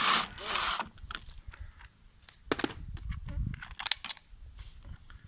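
Metal clicks, knocks and short scrapes of a wrench working the 12 mm bolt that holds a lawn mower's rear wheel. Two louder scrapes come at the start, and a small metal click with a brief high ring comes near four seconds in.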